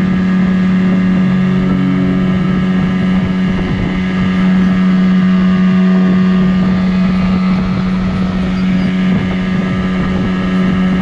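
Nissan Marine 9.8 hp outboard motor on an inflatable boat running at full throttle, a steady unchanging engine note, with wind buffeting the microphone.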